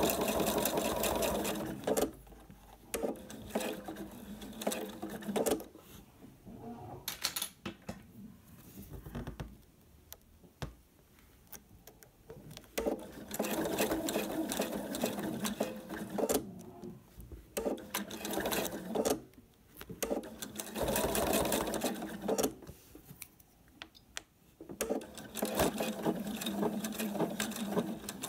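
Pfaff Quilt Expression 4.2 sewing machine stitching through faux leather and piping in several short runs: a burst at the start, then longer runs of a few seconds each in the second half, with pauses and small clicks in between.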